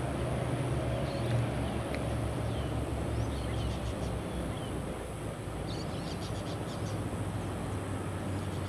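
Outdoor ambience: a steady low rumble with faint bird chirps over it, including a quick run of chirps about six seconds in.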